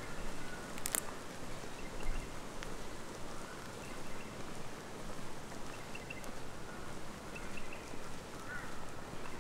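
Footsteps of a walker on a dirt bush track, with a few faint, short bird chirps now and then and a sharp click about a second in.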